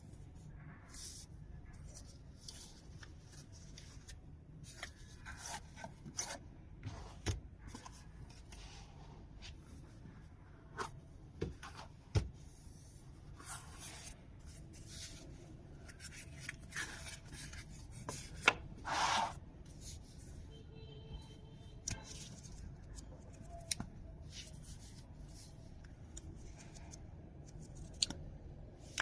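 Hands unboxing a wristwatch: scattered small clicks, taps and rubbing of the box and packaging, with a longer rustle about two-thirds of the way through.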